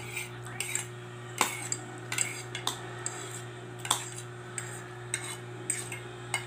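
Metal fork and spoon clinking and scraping against a plate while eating, in irregular sharp clinks about every half second, loudest about one and a half and four seconds in, over a steady low hum.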